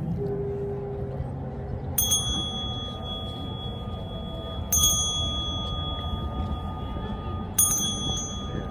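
A small metal bell struck three times, about three seconds apart. Each strike rings on with a high, clear tone.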